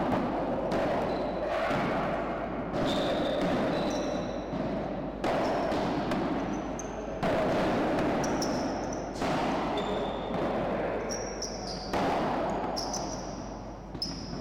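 A padel rally: the ball struck by padel rackets and bouncing off the court and glass walls, a sharp hit every one to two seconds, each ringing on in the reverberant hall.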